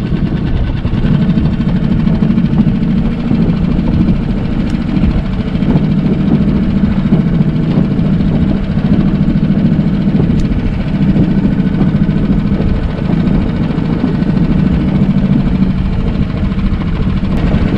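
Small outboard motor on an inflatable boat running steadily, getting louder about a second in as the boat gets under way.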